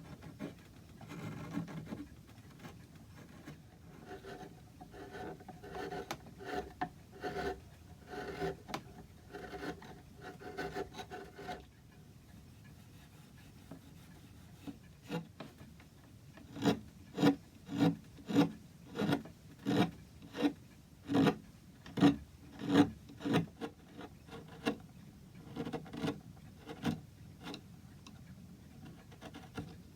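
Wood being worked by hand with an abrasive tool in repeated back-and-forth strokes, about one and a half a second. The strokes pause briefly near the middle and come back louder.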